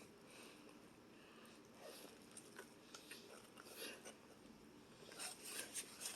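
Faint, quiet chewing and small wet mouth clicks of a person eating a cheeseburger, with the clicks coming more often near the end.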